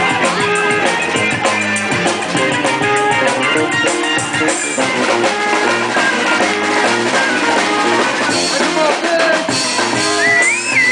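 Live band playing an instrumental passage of a rap, jazz and MPB song, with drum kit and guitar. Near the end a high sliding tone rises and falls over the music.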